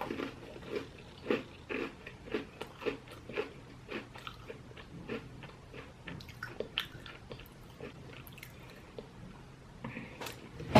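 Person chewing a peanut butter Oreo cookie close to the microphone: irregular crisp crunches, a few a second, that thin out after about seven seconds.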